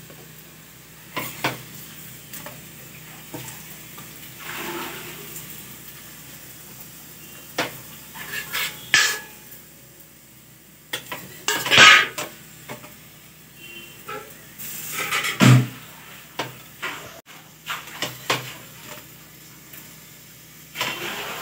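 A spatula scrapes and taps on a flat tawa while an onion paratha fries on it, over a faint steady sizzle. The scrapes come at irregular intervals, and the loudest is just past the middle.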